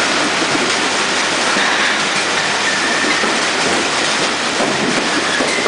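Kiwifruit packhouse conveyor machinery running: a loud, steady mechanical noise full of small knocks and rattles from the belts and rollers carrying fruit and boxes.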